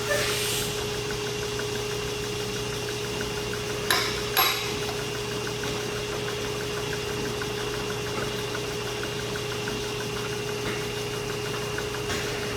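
Steady machine hum holding one constant pitch, with faint regular ticking. Two short, sharp noises come about four seconds in, close together.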